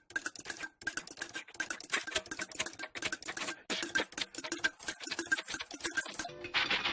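Rapid, irregular clicking and tapping, several sharp clicks a second; about six seconds in it gives way to a different, duller sound.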